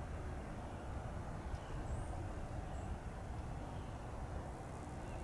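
Outdoor ambience: a steady low rumble throughout, with two faint high chirps near the middle.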